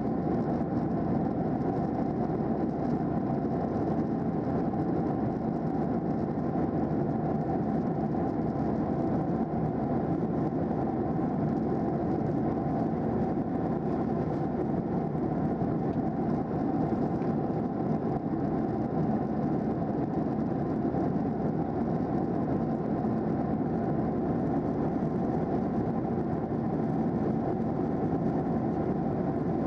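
Steady cabin drone of a Boeing 737-800 in cruise, heard inside the cabin beside the wing: the CFM56-7B turbofans and the airflow over the fuselage make an even, unchanging roar, with a few faint steady hums in it.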